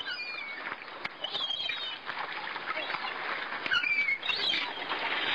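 Birds chirping: a scattering of short, quick calls over a steady hiss, growing busier and louder toward the end.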